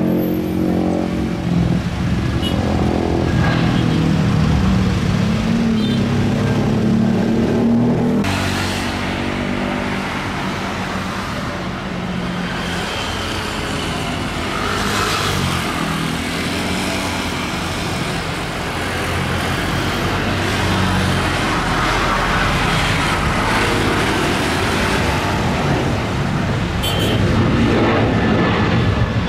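Jet airliner engines at takeoff power. An Airbus A320-family jet climbs away, then after an abrupt change about 8 seconds in, a Boeing 737 makes its takeoff roll and climb-out, growing louder near the end.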